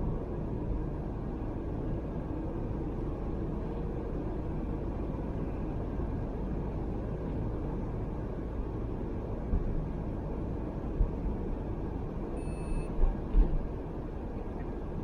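Steady road and engine noise inside the cabin of a Great Wall Hover H3 while driving, with a few short thumps and a brief high beep about twelve seconds in.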